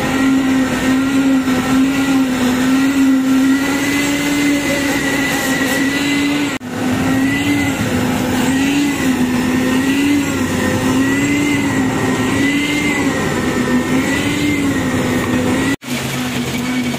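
Electric poker-type concrete vibrator running with a loud steady hum, its pitch wavering slightly. The hum cuts out for an instant twice, about a third of the way in and near the end.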